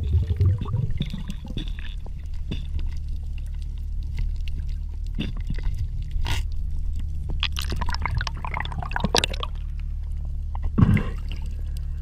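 Water heard through an underwater camera: a steady low, muffled rumble with scattered sharp clicks and crackles. About eight to nine seconds in there is a louder stretch of gurgling, splashy noise, and a single hard knock comes near the end.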